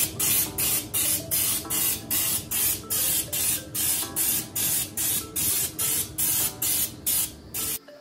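Air-fed spray gun of a Raptor bed-liner kit, run off an air compressor, spraying liner in a quick string of short hissing bursts, about two or three a second. It cuts off abruptly near the end.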